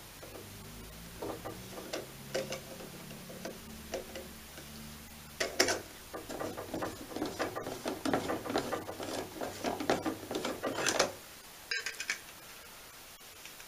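The brass rack-and-pinion coarse focus of an early-1900s Watson & Son student microscope being turned by hand, its rack fitted with newly cut phosphor-bronze teeth. The gearing gives scattered ticks at first, then a dense run of small clicks and ticks for about five seconds that stops abruptly, with a couple of single clicks just after.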